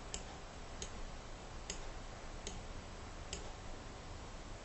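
Computer mouse clicking: single sharp clicks about one every 0.8 seconds as control points are selected one by one, over faint background hiss.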